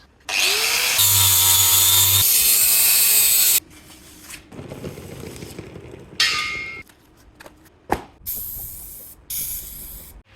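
A metalworking power tool spins up and runs on steel for about three seconds, then stops suddenly. A string of shorter workshop tool noises follows, broken up by abrupt cuts.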